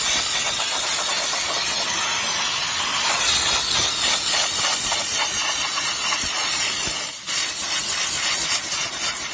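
High-pressure steam car washer jetting steam from its wand onto ice around a car's wheel: a steady, loud hiss with a brief dip about seven seconds in. The steam is set to a high moisture content.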